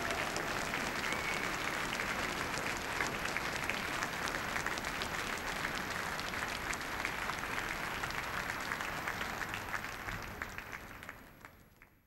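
Arena audience applauding, a dense patter of many hands clapping that fades out over the last two seconds.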